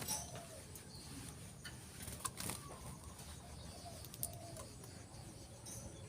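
Short soft bird calls, low and arching, repeating roughly once a second, with a few sharp clicks between them.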